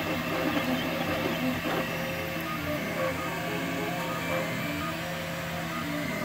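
Dremel 3D20 Idea Builder 3D printer at work: its stepper motors whir through short moves of the print head, giving brief tones that jump from pitch to pitch, over a steady hum.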